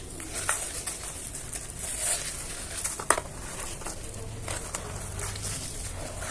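Dry chunks of black cement and sand crumbling and crunching, with many small crackles, the patter of falling grains and one sharp crack about three seconds in.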